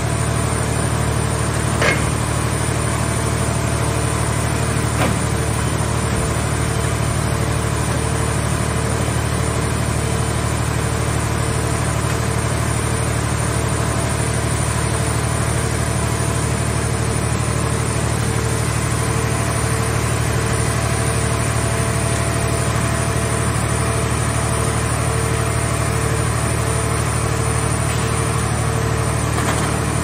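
Hydraulic power unit of a scrap car baler running steadily while its grapple loader arm works, a constant drone with a faint regular pulsing tone in it. Two brief knocks come about two and five seconds in.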